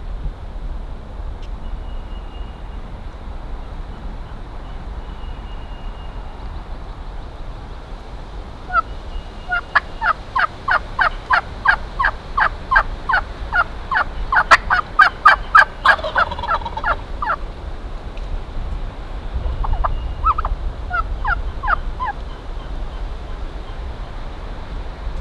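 Turkey yelping: a long run of yelps at about three a second, then a shorter run near the end, over a steady low wind rumble on the microphone.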